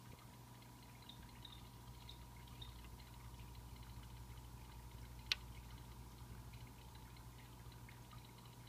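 Small vivarium waterfall trickling steadily, with a few faint short high chirps from sky-blue poison dart frogs (Hyloxalus azureiventris) in the first few seconds. One sharp click about five seconds in.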